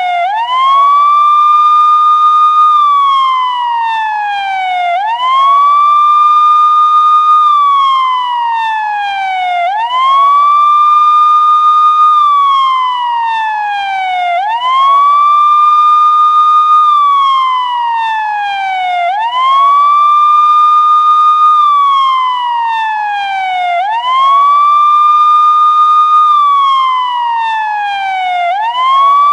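Police car siren sounding a slow wail. Each cycle rises quickly to a high steady tone, holds it for about two seconds, then slides down over about two seconds, repeating roughly every four and a half seconds, about six times over.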